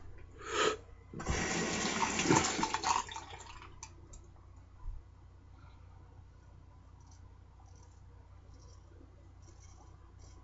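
Tap water running into a sink for about two seconds, starting about a second in, as the safety razor is rinsed between strokes. After that come only faint, scattered scrapes of the razor on lathered skin.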